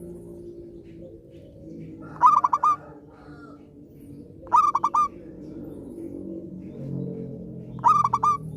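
Zebra dove (perkutut) cooing: three phrases a couple of seconds apart, each a quick run of about four short, rippling notes, over a faint low hum.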